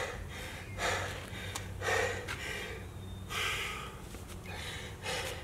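A man breathing hard and deep, about one breath a second, winded just after finishing a hard workout of thrusters and pull-ups.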